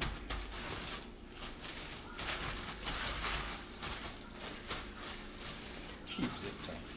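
Plastic oven bag rustling and crinkling in the hands as it is gathered and twisted shut.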